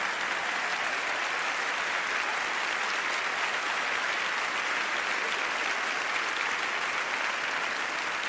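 A large concert audience applauding steadily in a cathedral.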